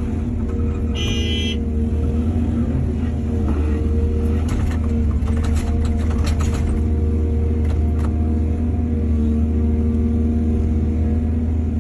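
Excavator's diesel engine running steadily, with a cluster of clanks and knocks from about four to seven seconds in and a brief high beep about a second in.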